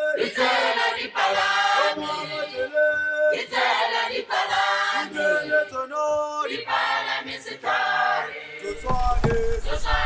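Music: a choir singing. Near the end a low rumble comes in under it.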